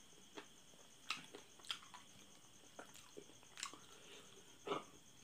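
Close-up mouth sounds of eating sauce-covered chicken feet: quiet, irregular wet clicks and smacks of chewing and biting, two or three a second, the loudest about a second in and near the end.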